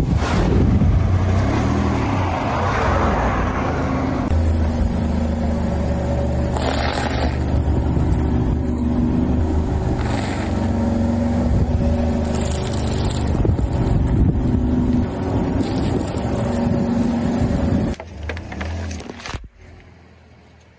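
Car engine running as the car drives slowly, its note rising and falling a little. It drops away sharply near the end.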